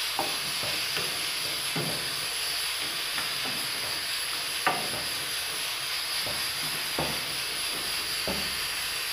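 Chicken cooking in sauce in an aluminium pot on a gas stove, with a steady hiss of steam and sizzle while a spoon stirs it, knocking against the pot now and then, most sharply about halfway through.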